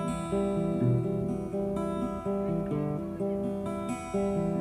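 Acoustic guitar strumming chords as a song intro, with regular strokes and the chords shifting every second or so.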